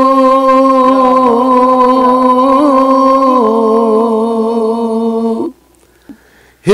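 Men's voices singing a Punjabi Sufi kalam: one long held note with an ornamented melodic line weaving over it, the held note stepping down slightly about three and a half seconds in. The singing cuts off sharply about five and a half seconds in, leaving a short pause before the next line starts at the very end.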